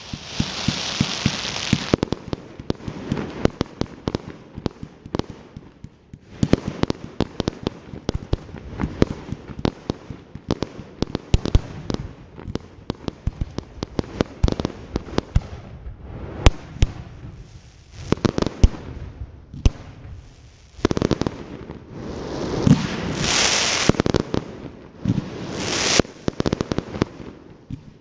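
Fireworks display of ground-fired multi-shot cakes: a dense run of launch thuds and crackling bangs overhead. Stretches of loud hissing come near the start and again in the last third.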